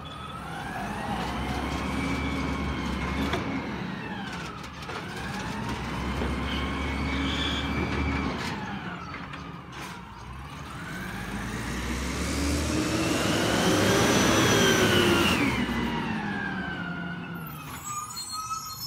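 Peterbilt 320 garbage truck's diesel engine revving up and back down twice, its pitch rising and falling, then a longer, louder rise and fall as the truck pulls away.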